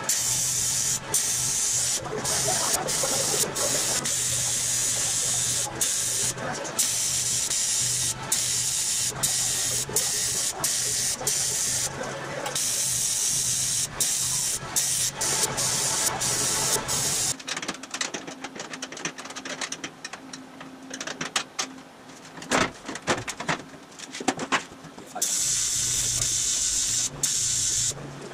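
AC TIG welding arc on aluminum: a steady buzzing hiss with many short breaks where the arc drops out. From about 17 to 25 seconds the arc is off and only scattered clicks and knocks are heard, then the arc hiss starts again.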